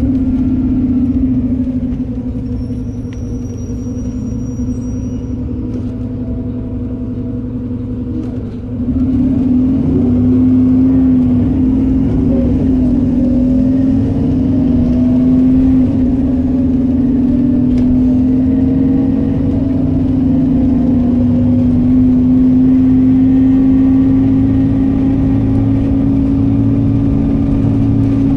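Volvo B7RLE single-deck bus's six-cylinder diesel engine and ZF automatic gearbox heard from inside the passenger saloon, running as a steady drone. It drops quieter about two seconds in, then grows louder again at about nine seconds, with whines rising in pitch.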